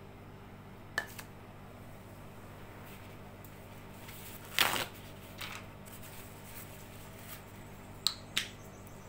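Small handling sounds of craft supplies on a work table: a light click about a second in, a short louder rustle-like knock around the middle, and two quick clicks near the end, over a faint steady hum.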